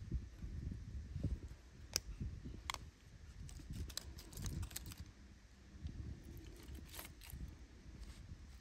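Split firewood pieces clacking and knocking against each other as kindling is stacked by hand onto a fire lay, in scattered light knocks with a cluster in the middle and another near the end, over a low rumble.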